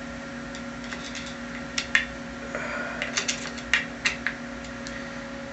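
A few irregular light clicks and taps, as of small parts and a hand tool being handled at a workbench, over a steady machine hum.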